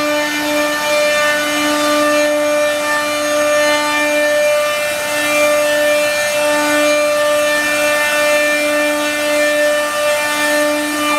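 Six spindles of a multi-head CNC router cutting MDF together: a steady high whine of the spindles over the noise of the cutters in the board, the lowest note swelling and dipping every second or two.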